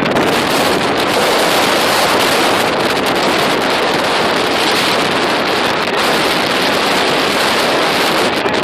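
Steady loud rush of wind buffeting the microphone, with surf breaking on the beach.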